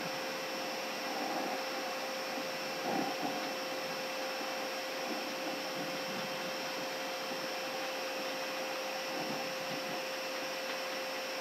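Steady flight-deck noise of an Airbus A380 cockpit while taxiing: an even air-conditioning and equipment hiss with several faint, steady whining tones.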